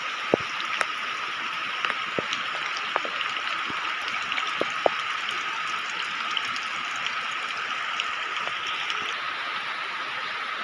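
Steady rain falling, with several sharp drops tapping close by in the first five seconds, over a steady high-pitched hum.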